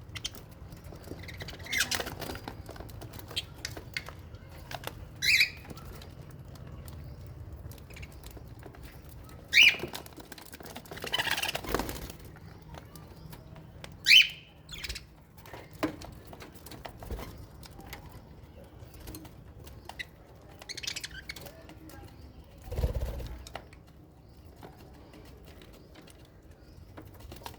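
Budgies and lovebirds in an aviary: a handful of short, sharp calls, with bursts of wing flapping and small clicks and rustles in between.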